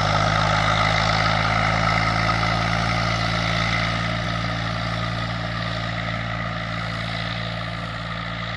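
Eicher 380 tractor's diesel engine running steadily as the tractor drives away, slowly growing fainter.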